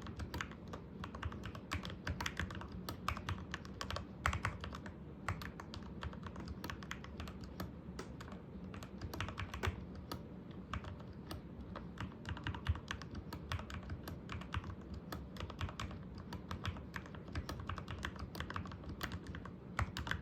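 Continuous typing on a Keychron K6 mechanical keyboard with Gateron Milky Yellow Pro linear switches: a fast, uneven run of keystroke clacks with occasional louder hits.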